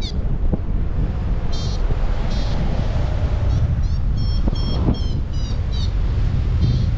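Wind rushing over the microphone in flight under a paraglider, with a variometer sounding several quick clusters of short, high beeps, some rising in pitch. The beeping is the vario's climb tone, signalling rising air.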